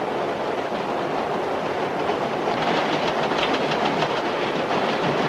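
Subway car running on the rails, heard from inside the car: a steady rumble and rattle, with quick wheel clicks that become more noticeable about halfway through.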